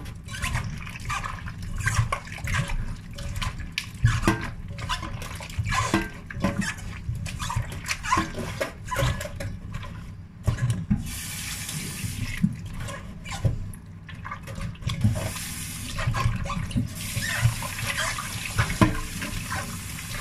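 Hands squeezing and rubbing soaked mushrooms in a stainless steel bowl of water, with repeated wet splashes and squelches. A tap runs into the bowl briefly about eleven and fifteen seconds in, then steadily from about seventeen seconds, rinsing the mushrooms.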